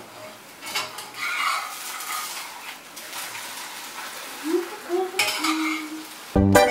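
Metal spatula scraping and clinking against a frying pan and a china plate as thin crepes are flipped and lifted, over a faint sizzle of frying. About six seconds in, accordion music starts suddenly.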